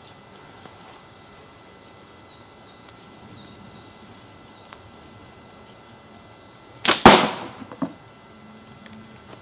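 A hand-held slingshot is shot about seven seconds in: its rubber bands are released with one sharp snap. Before the shot, a bird sings a quick run of about a dozen short falling notes, about three a second.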